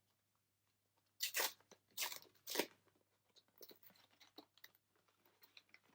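Foil booster-pack wrapper being torn open and handled: three short loud rips between about one and three seconds in, then lighter crackling of the wrapper and cards.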